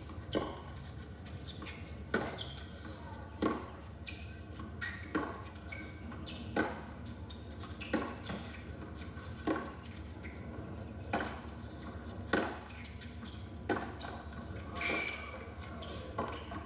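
Tennis ball struck back and forth by racquets in a long baseline rally: a sharp pop about every second and a half over a steady low hum, heard through a TV's speakers.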